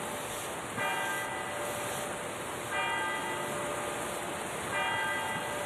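Church bell tolling for evening mass, three strokes about two seconds apart, each ringing out and fading before the next.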